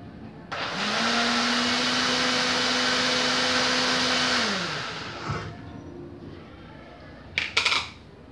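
Countertop blender mixing cornmeal cake batter: the motor starts with a rising whir, runs steadily for about four seconds, then winds down as it is switched off. A short clatter follows near the end.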